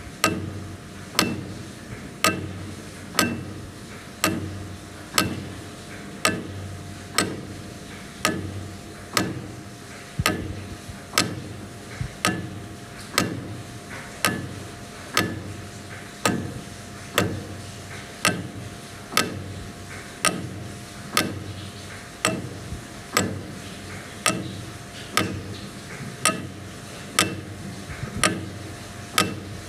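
Large mechanical clock movement ticking steadily, with sharp ticks about once a second, each dying away quickly, over a faint steady hum.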